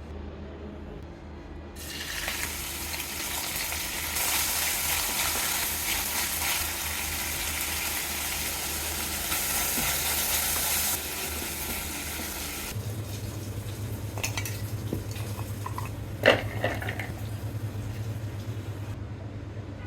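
Food sizzling in a hot frying pan for about ten seconds, then the sizzle stops; after it a steady low hum, with one sharp metallic clank near the middle.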